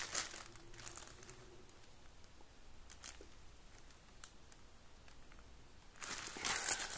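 Plastic shrink-wrap on a small cardboard pack of firecrackers crinkling as it is handled: crinkling at first, then quiet with a few faint ticks, then louder crinkling near the end.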